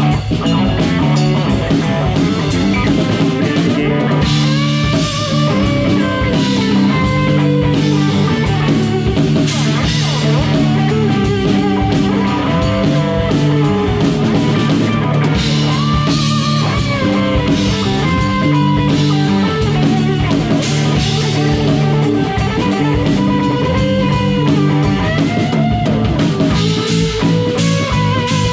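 Live rock band playing a song, with guitar and drum kit over sustained low notes, and melodic lines that move up and down.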